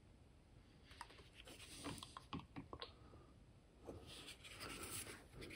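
Faint handling noises from a hand working a plastic squeeze bottle of diluted white glue over model scenery: a few small clicks and taps, then a soft scratchy rustle near the end.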